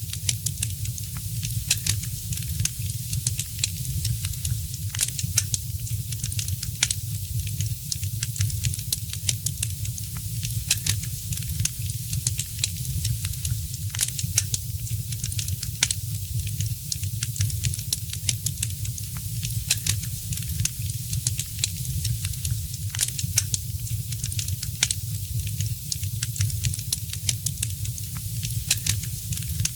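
Wood fire crackling, with many sharp irregular pops and snaps over a steady hiss and a low rumble of the flames.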